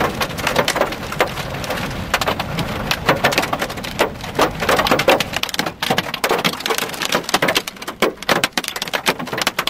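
Hail and rain pelting the vehicle, heard from inside the cabin: a dense, irregular clatter of sharp hits that grows sparser and more spaced out after about six seconds.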